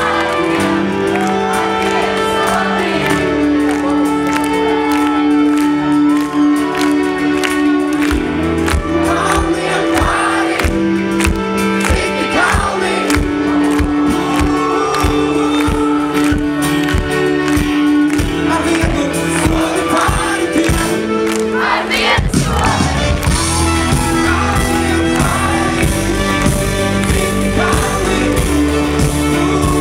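Live pop-rock band playing a song: held keyboard chords and singing, with drum hits joining about eight seconds in and the full band coming in heavier about twenty-two seconds in.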